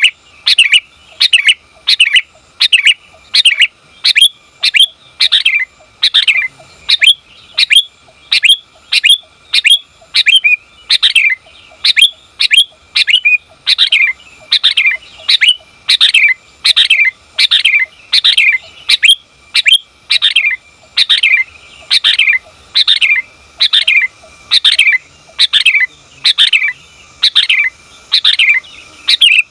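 Female sooty-headed bulbul (kutilang) calling to draw a male. Short, sharp notes that sweep downward in pitch, repeated steadily about three every two seconds.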